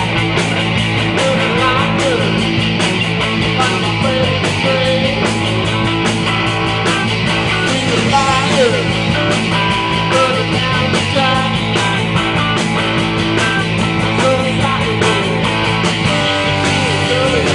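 Live rock band playing an instrumental passage: electric guitars over a drum kit keeping a steady beat, with a lead guitar bending notes.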